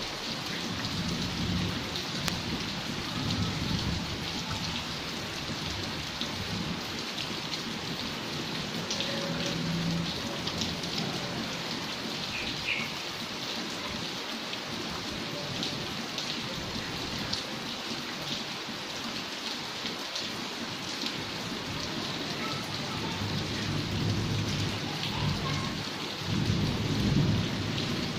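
Steady heavy rain falling on a flooded yard and on glass louvre windows, an even hiss full of small drop ticks. A low rumble swells near the end.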